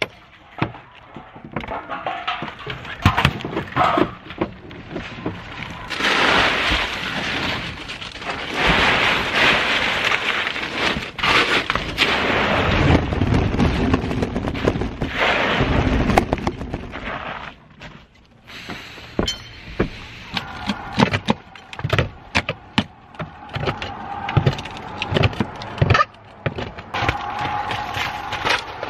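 Old asphalt shingles being scraped and pried off a wooden plank roof deck by hand tools: repeated cracks, knocks and clatters of tools and loose shingle pieces, with a long stretch of heavier scraping and rustling in the middle.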